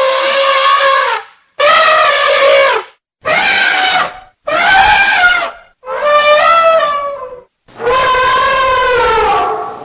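Elephant trumpeting: a string of six loud calls, each one to two seconds long with short gaps between them, the pitch wavering within some calls.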